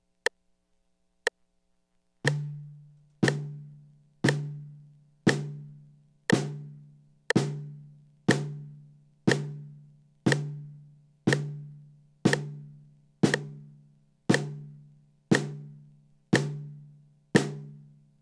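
Snare drum played in single strokes, right and left sticks alternating in quarter notes at about one stroke a second. There are sixteen even hits, each ringing with a low drum tone and dying away before the next. Two sharp clicks a second apart come before the first hit.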